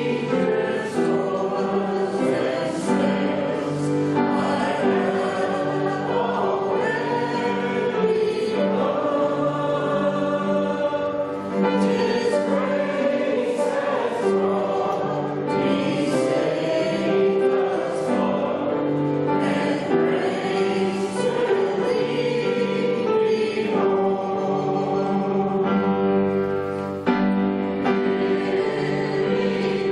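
Church congregation singing a hymn of invitation together, many voices holding long notes over musical accompaniment.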